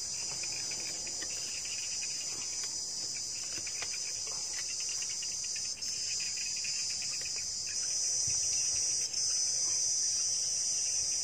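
Insects chirring in a steady, high-pitched chorus, with a faster pulsing chirp beneath it in the first half. It grows a little louder about eight seconds in.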